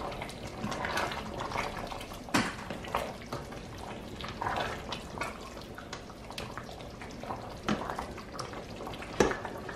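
A slotted plastic spoon stirring a thick, simmering okra stew in a stainless steel pot: wet sloshing and bubbling, with a few sharp knocks of the spoon against the pot, the clearest about two seconds in and another near the end.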